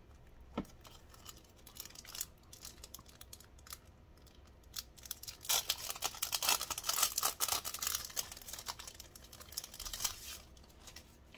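Clear plastic sleeves crinkling and rustling as sticker sheets are handled and slid out of them, with a few light crackles at first and a longer, louder stretch of crinkling a little past the middle.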